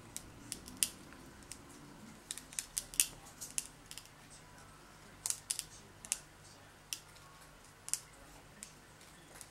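Small craft scissors snipping through acetate sheet: short, crisp snips at irregular intervals, some in quick runs of several cuts.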